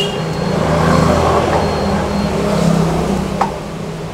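A motor vehicle's engine running nearby, swelling and then fading over about three seconds. A single sharp click comes near the end.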